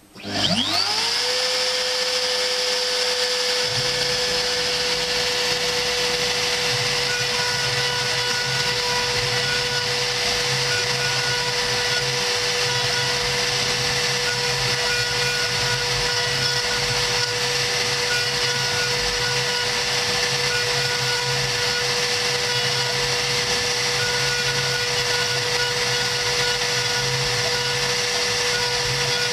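CNC router spindle spinning up with a rising whine over the first second, then running at a steady high pitch while the bit engraves lettering into 3 mm cardboard. A lower hum joins about three and a half seconds in.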